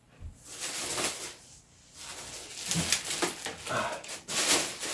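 Thin clear plastic bag rustling and crinkling as it is handled and pulled around a large car-audio subwoofer, a continuous run of crackles that grows louder near the end.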